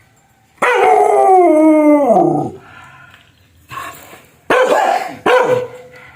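A dog gives one loud, drawn-out howl that slides down in pitch. Then come two sharp, fierce barks in quick succession.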